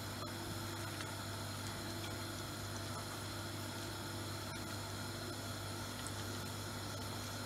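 Chapli kebab patty frying in oil on a flat iron tawa: a steady sizzle with a few faint crackles, over a steady low hum.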